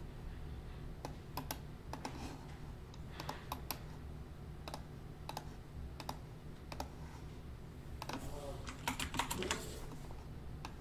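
Computer keyboard and mouse clicks, sparse and irregular, with a quicker run of clicks about eight to nine and a half seconds in, over a low steady hum.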